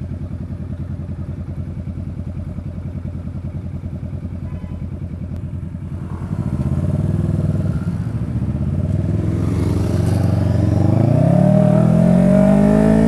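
Kawasaki motorcycle engine idling with an even pulse, heard from the rider's seat. About six seconds in it gets louder as the bike pulls away, and it rises in pitch as it accelerates toward the end.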